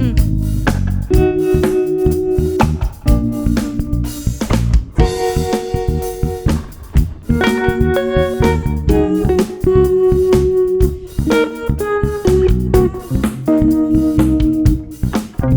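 Live band playing an instrumental passage: guitar picking a melodic line over electric bass and a drum kit.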